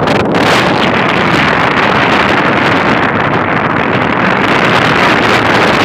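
Strong wind blowing over the phone's microphone: a loud, steady rushing noise.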